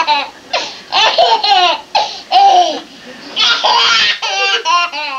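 A baby laughing hard in several high-pitched bursts, each a quick run of pulsing giggles.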